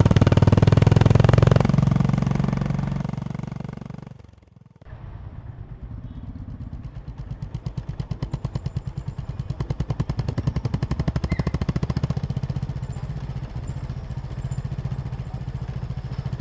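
Honda CB350 H'ness motorcycle's single-cylinder engine running, loud at first, then fading almost to nothing about four seconds in. It comes back more quietly as a steady run of evenly spaced firing pulses, swelling a little midway.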